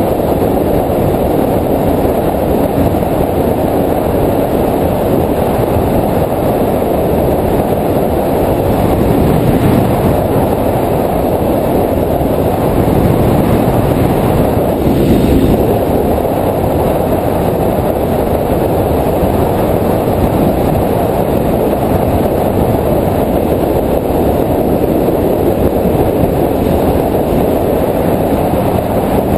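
Steady rumble of wind buffeting and road noise on a camera mounted on a Suzuki DR-Z400SM supermoto being ridden, with the bike's single-cylinder engine running underneath.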